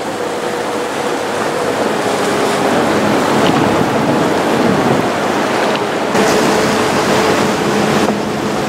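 Venetian wooden water taxi under way: a steady engine drone with water rushing along the hull and wind buffeting the microphone.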